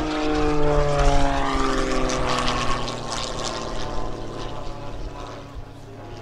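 Piston-engine aerobatic propeller plane flying past, its engine-and-propeller drone sliding down in pitch as it passes. The sound then fades away over the last few seconds.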